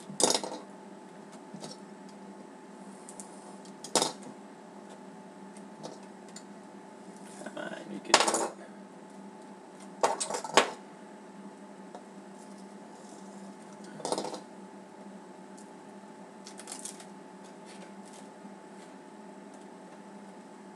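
Half a dozen sharp clicks and knocks, two of them close together about ten seconds in, as a jumbo trading-card pack and loose cards are handled, tapped down and cut open on a wooden tabletop, over a steady low hum.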